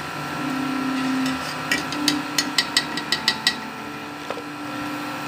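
Wire spider skimmer clinking against the aluminium kadai as fried chana dal pakoras are lifted out of the oil: about a dozen quick, sharp metallic taps over some two seconds, starting about a third of the way in.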